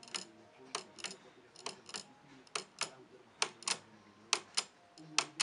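Wooden-geared pendulum clock ticking as it runs: sharp wooden clicks from the escapement, mostly in close pairs, a pair about every second.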